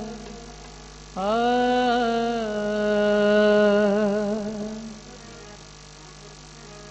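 A man's voice holding one long sung note in a devotional chant, starting about a second in, wavering into vibrato and fading out around five seconds. After that only a steady electrical hum.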